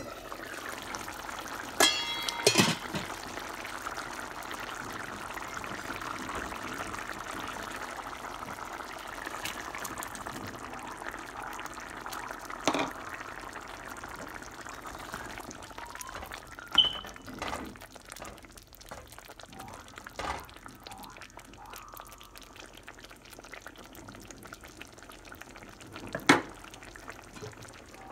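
Aluminium pan lid clinking and ringing as it is lifted off, about two seconds in, then a pan of tomato-based gravy with peas simmering with a steady bubbling hiss, broken by a few sharp knocks.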